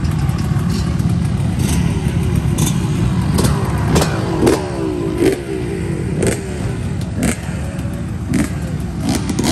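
Many dirt bike engines running together at a race start line, a steady low rumble with individual bikes revving up and down over it. Scattered sharp clicks sound through it.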